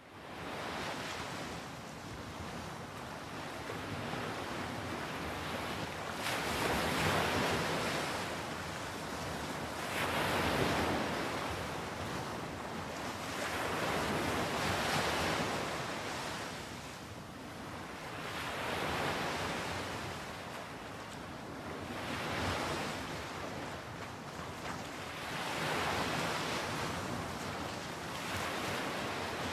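Ocean surf: waves washing in and drawing back in slow swells every three to four seconds.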